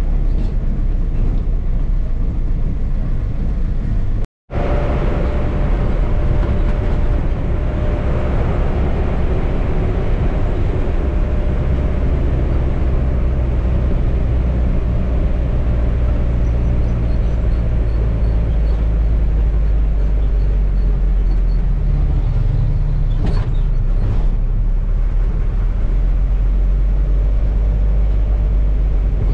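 Hyundai-engined bus running on the road, heard from inside the cabin: a steady low engine rumble with road noise. The sound drops out for an instant about four seconds in.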